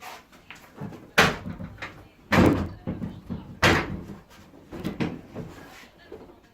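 A run of knocks and bangs from gear being handled: four loud knocks roughly a second apart, with smaller clatters between them.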